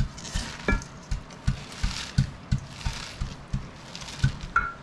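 Hands squeezing and kneading salted shredded cabbage in a stainless-steel bowl: wet crunching and rustling of the cabbage with a regular low thud about three times a second at each press. The cabbage is being worked to draw out its juice, the brine for sauerkraut fermentation.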